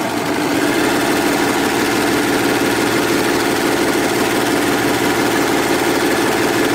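Overlocker (serger) running steadily at sewing speed, stitching along the edge of a fabric strip.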